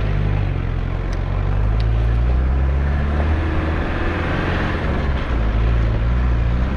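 Engine of an old four-wheel-drive vehicle running on a rough dirt track, its low note shifting slightly a few times, under a steady rush of noise.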